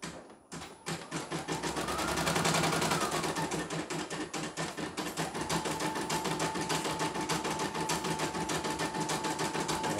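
CNY E900 portable embroidery machine starting to stitch about a second in, its needle mechanism clattering in a rapid, even rhythm; a steady tone joins about halfway through. It is on a test run after repair and parts replacement.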